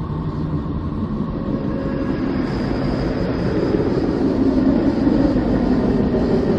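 Telescope data turned into sound: a dense, rough rumble like a distant engine, slowly swelling louder, with a faint thin high tone joining about two and a half seconds in.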